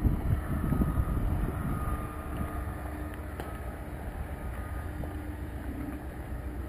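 Wind buffeting the microphone, a gusty rumble strongest in the first couple of seconds, over a steady low mechanical hum that fades in and out.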